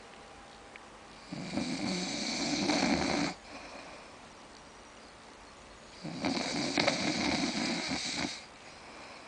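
A man snoring in his sleep: two loud, rasping snores of about two seconds each, roughly five seconds apart, with quiet breathing between them.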